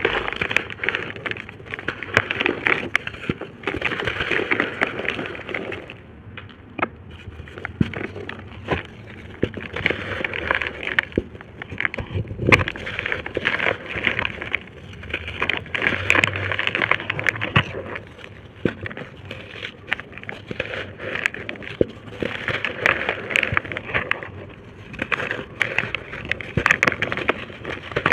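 Dry red-dirt brick shapes being crushed and crumbled, giving gritty crunching full of sharp cracks and crackles. The crunching comes in bursts of a few seconds, with quieter stretches between.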